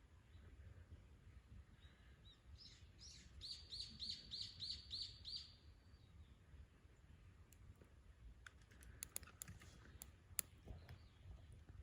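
A songbird sings a phrase of about seven quick repeated notes. A few seconds later a campfire crackles with sharp, scattered pops and snaps.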